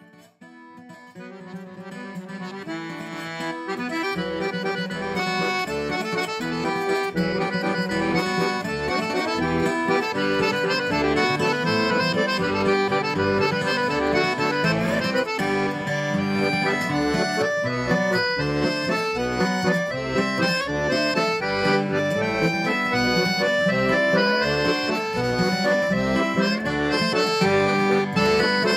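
Background music led by an accordion, a traditional-style tune over a steady beat, fading in over the first few seconds.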